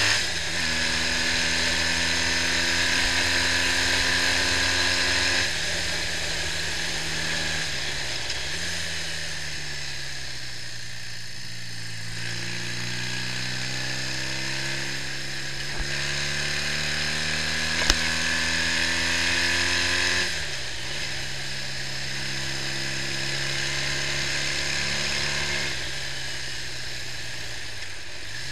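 BMW R65's air-cooled flat-twin boxer engine being ridden on the road: the revs climb slowly and then drop at each gear change, several times over. A steady high-pitched hiss runs over it throughout.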